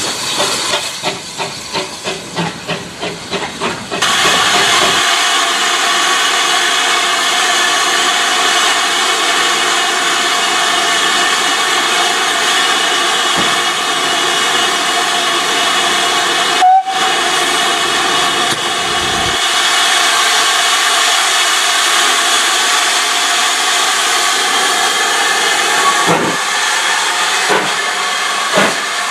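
GWR 4300 Class Mogul steam locomotive, first giving a few seconds of evenly repeating exhaust beats, then standing close by with a loud, steady hiss of escaping steam. Near the end come a few separate clanks as the train moves.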